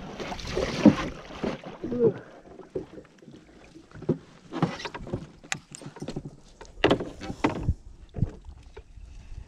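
Irregular knocks and bumps on a wooden boat's hull and the gear inside it, with short bursts of water splashing as a hooked fish is brought to the landing net.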